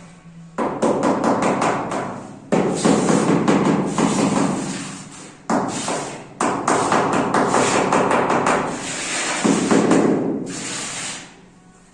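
Loud scraping and rubbing with rapid knocks from hand tools working a hard surface, in about four long bursts with short breaks between them.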